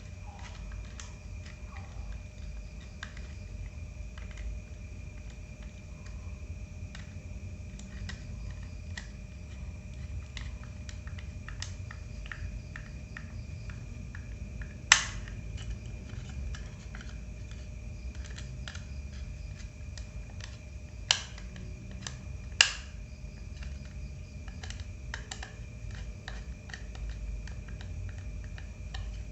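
Small clicks and taps of laptop parts and screws being handled, with three sharper clicks about halfway through and a little later, over a faint steady whine.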